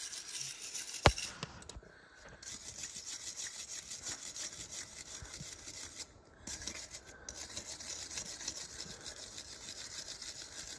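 Hand-held steel wire brush scrubbing a rusted steel arbor fresh from an electrolysis bath: quick back-and-forth strokes scrape off the loosened rust, with short pauses about two and six seconds in. A single sharp click about a second in is the loudest sound.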